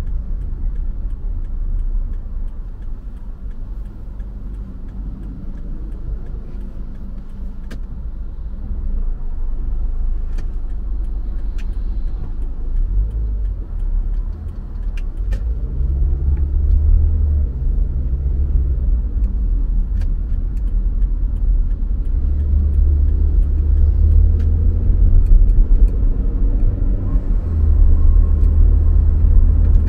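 Car driving on city roads: a steady low rumble of engine and tyres that grows louder in the second half, with a few faint clicks.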